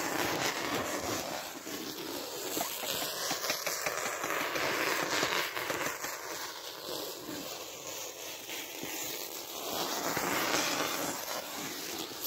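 Plastic stretch film crackling steadily as it is pulled off the roll and wrapped around branch poles, swelling and fading as the roll moves.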